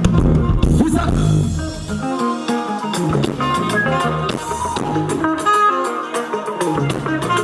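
Live band music with guitar, bass and drums, playing without singing.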